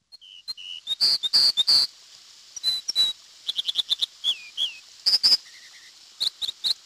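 American dipper singing: a varied string of high, sharp whistled notes, some slurring downward, most repeated in quick runs of two to five. A steady hiss runs underneath.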